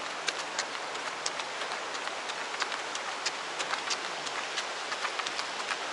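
A runner's footfalls on a paved path: light, regular clicks, paired about once a second, over a steady hiss.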